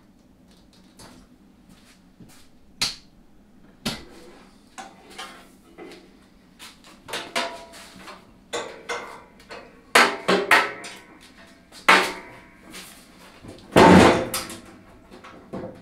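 Metal clanks, knocks and rattles of a small metal-cutting bandsaw being handled and adjusted by hand, its motor not running. The knocks come irregularly, growing louder and closer together in the second half, the loudest near the end.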